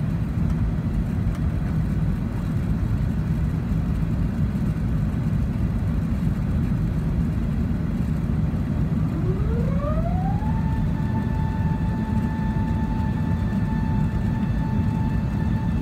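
Steady cabin roar of an Airbus A380 climbing out after takeoff, its Rolls-Royce Trent 900 engines and airflow heard through the fuselage, heaviest in the low end. About nine seconds in, a whine rises in pitch over a second or so and then holds steady on one note.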